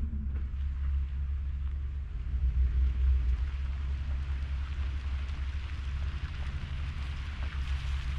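Ford F350 pickup's engine running with a steady low hum as the truck moves with the dump trailer, while a hiss rises over it toward the end.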